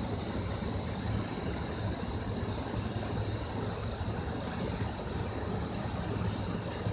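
Steady low mechanical hum with a faint high whine, unchanging throughout.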